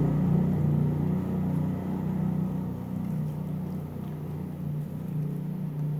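Steady low hum of a running motor, slowly getting quieter.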